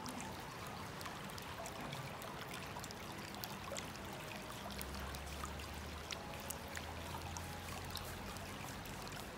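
Water bubbling up from a small round fountain head into a stone basin and spilling over, a steady trickling splash with small scattered drips.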